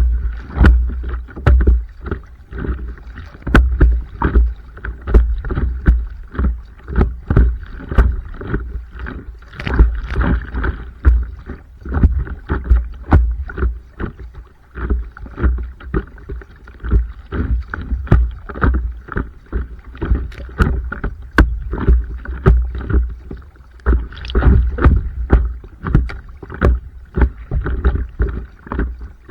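Stand-up paddleboarding on open water: paddle strokes and water splashing and slapping against the board, with frequent uneven low thumps and rumble.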